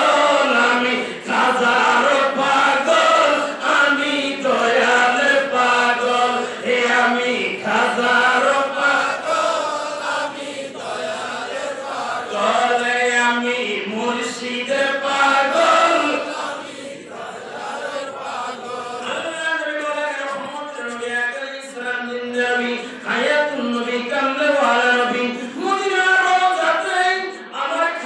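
A man's voice leading a melodic Islamic devotional chant into a microphone, amplified through a PA system, in long held lines.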